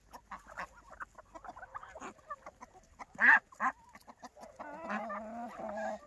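Free-range chickens clucking and calling, with one loud short call about three seconds in and a longer drawn-out call near the end.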